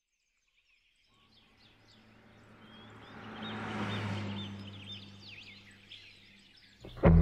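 Birds chirping over a low steady hum and a rushing noise that swells and fades, peaking about four seconds in. Guitar music cuts in right at the end.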